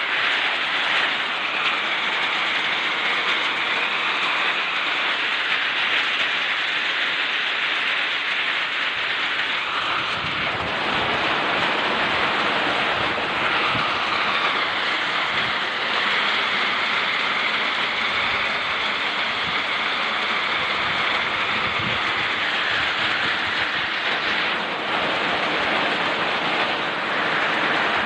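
Typhoon wind and heavy rain: a steady rushing roar that grows heavier with gusts about a third of the way in, with a faint wavering whistle from the wind now and then.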